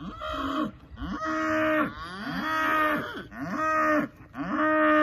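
A herd of cattle mooing close by, one call after another: about five moos, each under a second long, rising at the start and dropping at the end, some overlapping.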